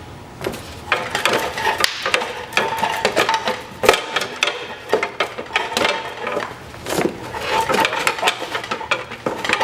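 Irregular metallic clinking and clattering of hand tools and loosened bolts against the steel parts of an old motorcycle chassis being taken apart.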